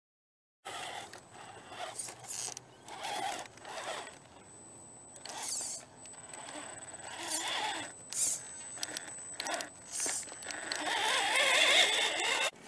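Electric RC scale crawler's motor and gears whining in short stop-start bursts as it crawls over a log, with tyres scraping and a thin high whine underneath. The whine rises and wavers loudest near the end, then cuts off abruptly.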